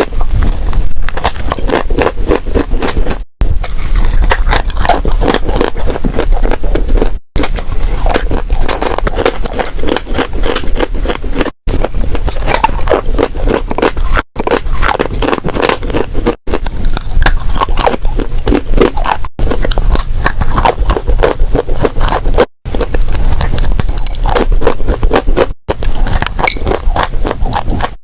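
Dry crunchy clay crunching and crumbling with dense crackling and scraping. The sound comes in short takes cut together, each broken off by a brief silent gap every few seconds.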